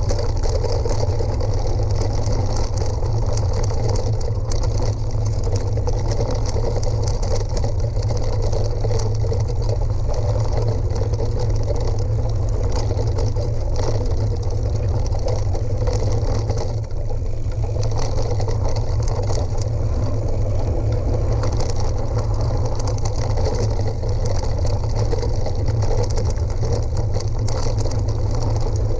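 Steady rumble and rattle of riding down a rough gravel track, with wind buffeting the action camera's microphone.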